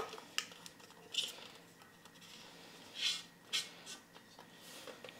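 A spatula scraping raspberry purée out of a stainless-steel Thermomix mixing bowl: a few faint scrapes and small clicks against the metal, scattered over the seconds.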